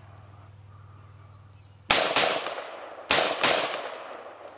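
Four shots from a .45-calibre pistol, in two quick pairs starting about two seconds in, each shot trailing off in a short echo.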